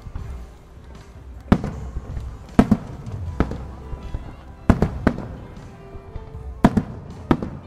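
Aerial firework shells bursting in sharp booms, about eight bangs at irregular intervals, some coming in quick pairs, with music playing faintly underneath.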